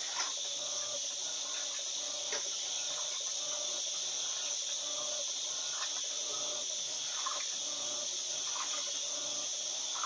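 Top-loading 12 kg washing machine agitating a load of bedding in high water: a steady watery swish with a faint hum and scattered small splashes.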